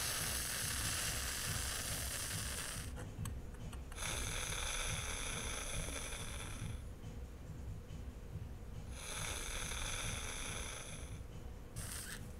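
A person snorting lines of cocaine up the nose: three long sniffs of two to three seconds each, with pauses of a second or two between them.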